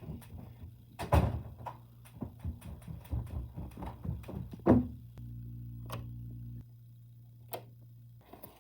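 A run of irregular knocks and thuds, the loudest about a second in and just before five seconds, then a steady low hum for about a second and a half that cuts off suddenly, and a single click near the end.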